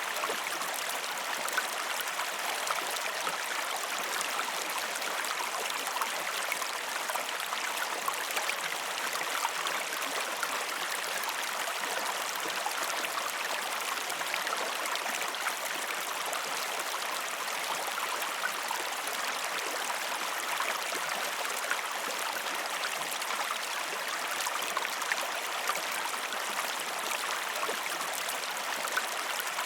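River water flowing over stones in a steady, even rush, with fine splashing and bubbling.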